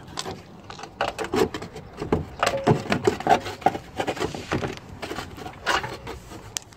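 Irregular clicks, knocks and scraping from hands working a rubber rear-silencer hanger and its bolts against the underbody of a BMW 740i.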